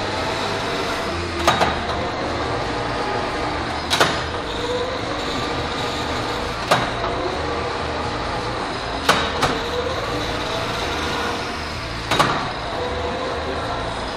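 Metal lathe running steadily while cutting a steel shaft, with a sharp metallic clack about every two and a half seconds, the rhythm of repeated fast thread-cutting passes.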